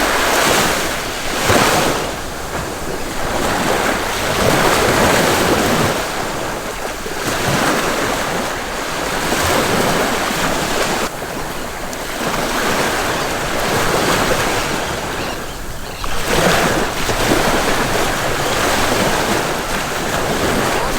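Ocean surf washing onto the beach, swelling and fading every few seconds, with wind buffeting the microphone.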